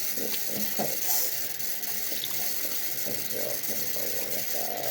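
Tap water running into a sink, a steady hiss, with small scattered clicks and handling noises over it.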